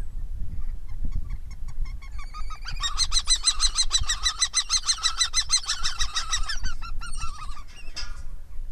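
Kestrel giving a rapid, even run of sharp repeated 'kee-kee-kee' notes, about seven a second, with a shorter call near the end. A low wind rumble on the microphone runs underneath.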